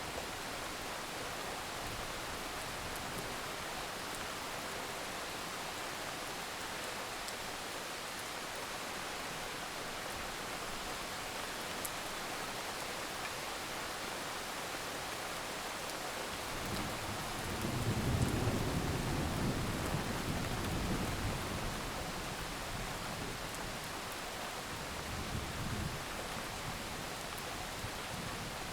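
Steady rain falling, with a low roll of thunder building about two-thirds of the way in and rumbling for several seconds, then a smaller rumble near the end.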